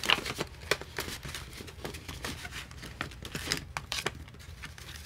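Paper banknotes rustling and crinkling in the hands, with many short flicks and clicks, as a stack of dollar bills is handled and slid into a clear plastic envelope in a ring binder.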